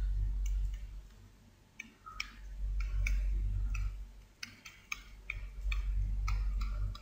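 Computer mouse buttons clicking, a dozen or so light, irregular clicks as numbers are handwritten stroke by stroke on a digital whiteboard, over a low hum that comes and goes.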